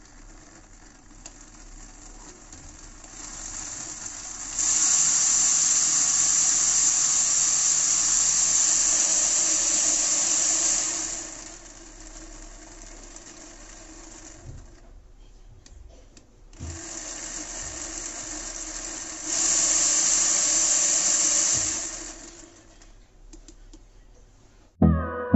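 Model radial engine made of small brushed DC motors spinning a plastic propeller: a steady whir with rushing air. It runs loud for several seconds, drops back, starts up loud again, and winds down near the end.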